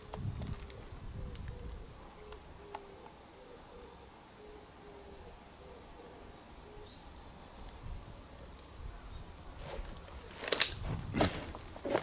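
A high, steady insect trill that swells every two seconds or so. Near the end, two loud footsteps land on dry leaf litter.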